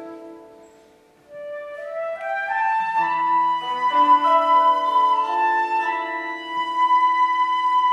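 Flute and koto playing together. The sound fades almost to nothing about a second in, then a rising run of notes begins, and a high note is held for several seconds.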